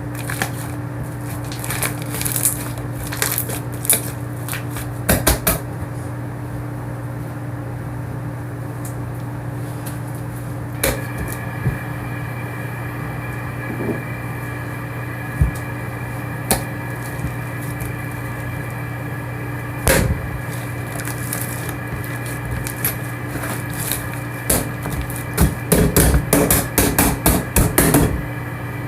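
Slime being handled and pressed, giving scattered sharp clicks and pops, with a fast run of clicks near the end, over a steady low hum.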